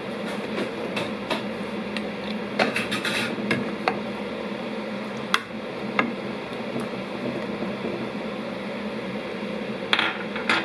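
Scattered, irregular knocks and clinks of kitchen utensils and cookware against pots and dishes, over a steady hum.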